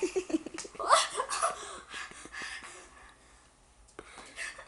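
A child laughing and breathing hard in the first second or so, then quieter, with scattered clicks and rustles from the camera being handled against fabric.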